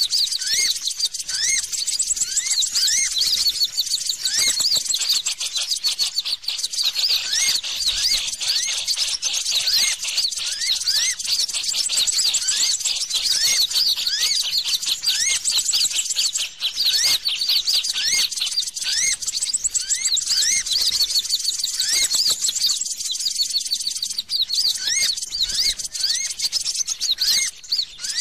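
Bird-lure (pikat) audio of small birds chirping without a break: a dense run of quick, high rising chirps, with a lower rising call repeated about twice a second.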